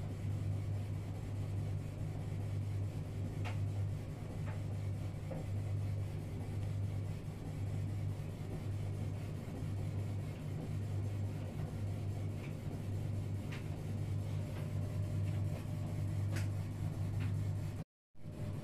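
Steady low hum with a few faint clicks and taps. The sound drops out completely for a moment near the end.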